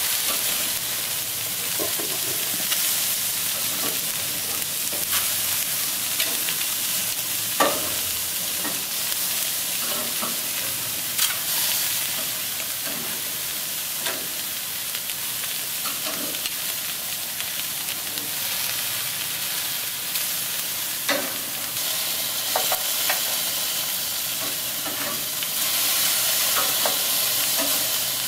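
Carne asada steak strips sizzling on a gas grill's grates, with sliced peppers and onions frying in a cast iron skillet beside them: a steady hiss that grows a little louder near the end. A few sharp clicks sound through it.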